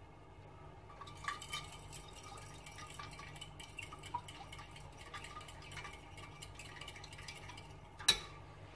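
A fork stirring an egg-and-milk mixture in a glass dish, with light, irregular clinks and taps against the glass. One sharper clink comes about eight seconds in.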